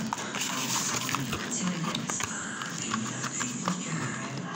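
Indistinct talking, with light clicks and rustling from a toy's cardboard packaging being handled.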